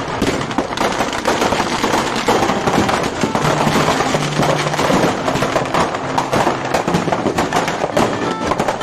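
Firecrackers packed into a burning Ravana effigy crackling and bursting in rapid, continuous succession, over background music.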